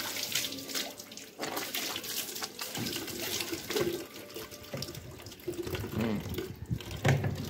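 Water running from a water tank's open outlet pipe and splashing into a bucket and steel pots, with short knocks and clicks of a plastic tap being pushed and turned onto the pipe while the water keeps flowing.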